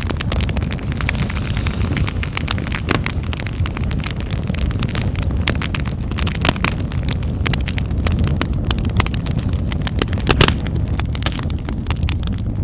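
Wood fire in a fireplace crackling, with many sharp pops at irregular intervals over a steady low rumble of the flames.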